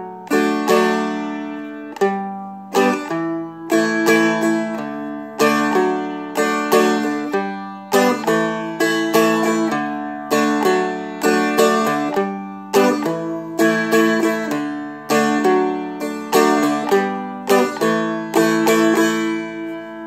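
Seagull Merlin, a small fretted dulcimer-style instrument, played with a pick: a bass note struck first, then the chord strummed, in a repeating rhythm through a D, G and A progression. The strings ring on between strokes, with no palm muting.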